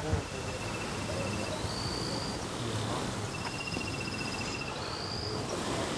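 Crickets trilling: short, evenly pulsed high trills at two steady pitches, each about a second long, recurring every second or two over a low background hum.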